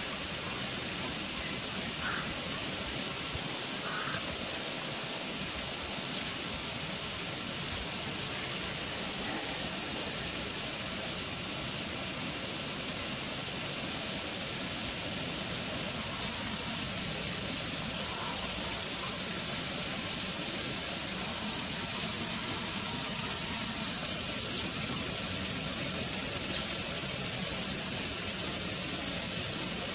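Dense chorus of cicadas: a loud, steady, high-pitched buzzing hiss that holds without a break.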